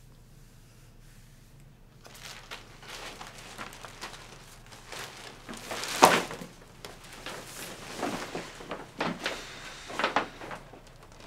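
A plastic bag rustling and crinkling as belongings and a long paper tube are picked up and handled, starting about two seconds in. There is a sharp knock about six seconds in and several softer thuds after it.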